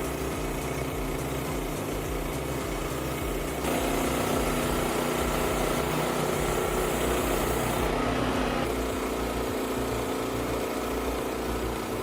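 Small petrol engine of a portable bandsaw sawmill running steadily, growing louder about four seconds in.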